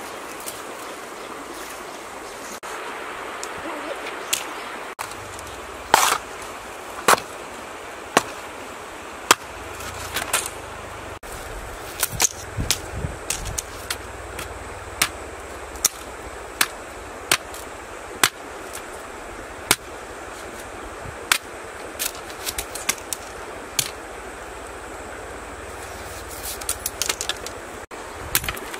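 Sharp, irregular knocks, about one a second with a quick cluster near the end, of a knife chopping and splitting wooden sticks, over a steady background hiss.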